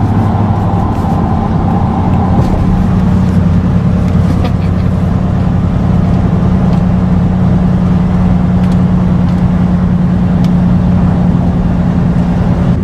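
Car driving, heard from inside the cabin: a steady engine drone with road noise. The engine note steps up about a second in, then holds steady.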